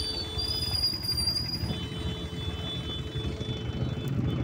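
Isuzu SUV's engine running low as it rolls slowly up a dirt track, with a high thin steady squeal over the first two seconds or so.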